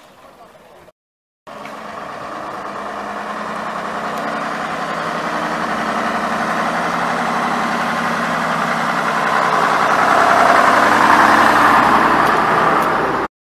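Diesel engine of a London Transport RT double-decker bus running as the bus pulls slowly past close by, growing steadily louder as it draws alongside.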